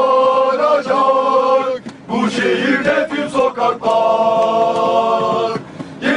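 Bursaspor supporters' terrace chant sung in unison by many male voices, with long held notes and a brief pause for breath about two seconds in and again near the end.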